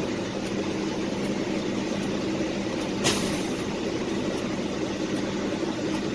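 Truck's diesel engine droning steadily inside the cab while driving, with one brief sharp hiss about three seconds in.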